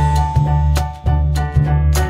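Background music with a steady beat: sustained bass notes and drum hits about twice a second.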